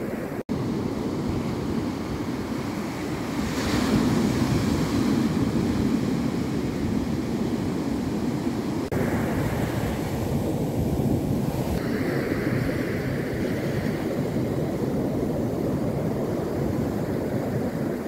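Black Sea surf breaking and washing up a sandy beach: a steady rushing wash of waves that swells louder about four seconds in, broken by a momentary dropout half a second in.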